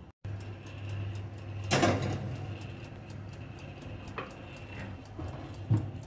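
Electric oven's clockwork timer ticking, quick and even, over a steady low hum. A loud clatter comes about two seconds in, and a softer knock near the end.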